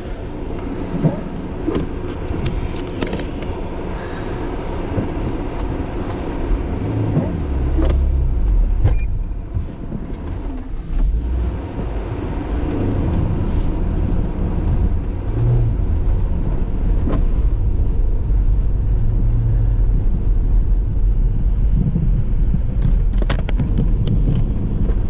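A car's engine running under load, its pitch rising and falling, as the car forces its way out of deep snow, with scattered knocks and crunches.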